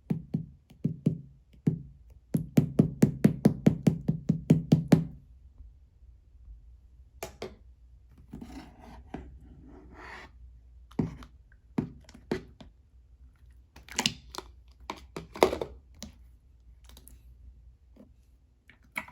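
A quick, even run of light knocks, about four a second, for the first five seconds, then scattered clicks and soft rustling handling noises.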